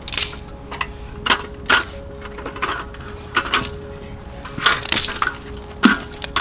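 Dry firewood cracking and snapping at a campfire: about a dozen sharp, irregular cracks, some coming in quick pairs.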